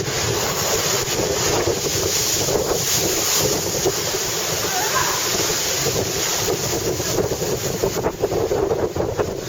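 Storm-force wind buffeting the microphone over the steady rush of heavy surf, unbroken and loud.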